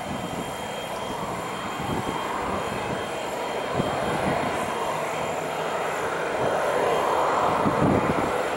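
Jet engines of a four-engined Cubana Ilyushin Il-96 airliner running as it moves slowly on the runway: a steady rush that slowly grows louder, peaking near the end.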